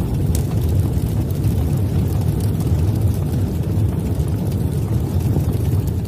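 Intro sound effect: a steady, deep rumble.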